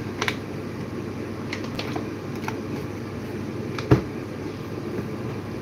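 Steady hum in a small kitchen, with a couple of sharp clicks about a quarter second in as a plastic water bottle's cap is twisted open. A few light ticks follow, then a single heavier thump just before four seconds.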